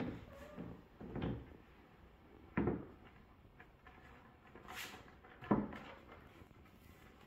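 About five separate wooden knocks and bumps as flat-pack furniture parts are handled and set down, the loudest a little past five seconds in.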